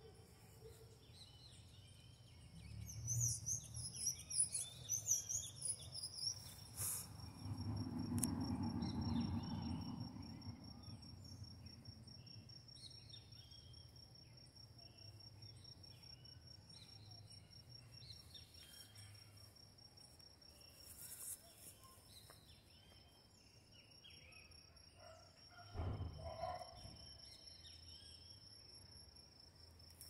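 Steady high insect trill, cricket-like, with a bird chirping about three to six seconds in. A low rumble swells around eight to ten seconds in, and a brief knock comes near the end.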